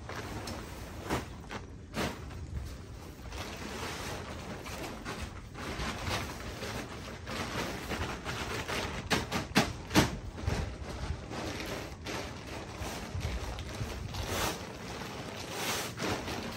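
Awning room tent fabric rustling and swishing as it is folded and stuffed into its black storage bag, with sharp crinkles and scrapes from the handled cloth, bunched most thickly about nine to ten seconds in.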